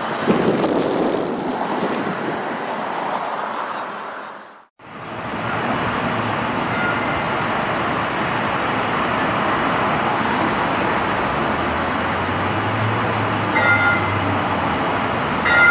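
Steady city street traffic noise with a QLine streetcar running along the avenue. The sound cuts out briefly about five seconds in. Later a streetcar approaches the stop with a low hum, and two short high tones sound near the end.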